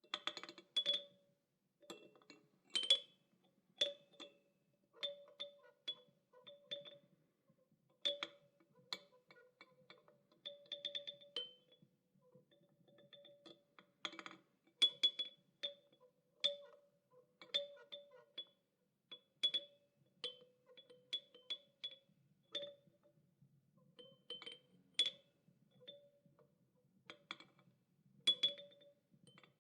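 Child's toy chime struck over and over in an irregular run of clinks and clanks. Each strike rings briefly on the same low and high tones, some singly and some in quick clusters.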